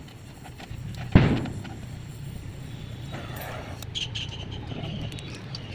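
Stick welding of a steel pipe onto a steel plate: the arc crackles while tack welds are laid, with one sharp knock about a second in.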